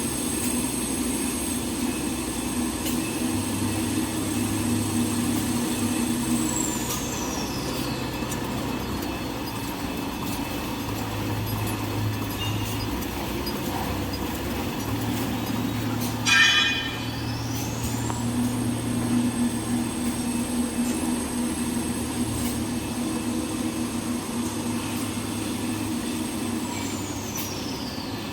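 Small toilet paper machine running with a steady hum and a high whine. The whine drops away over a second or two, a short loud burst comes about halfway, then the whine rises again, holds and drops away near the end, a repeating machine cycle.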